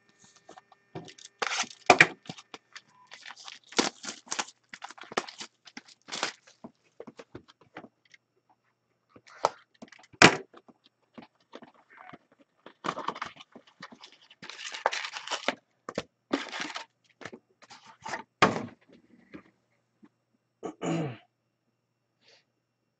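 Cellophane shrink-wrap crackling and tearing and cardboard being handled as a sealed box of hockey cards is opened, in irregular crinkles and rustles with several sharp clicks and knocks.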